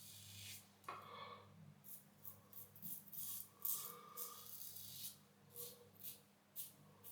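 Safety razor (Christopher Bradley Karve, C plate, Gillette Wilkinson Sword blade) scraping through lathered stubble in short strokes, about two a second, faint and raspy.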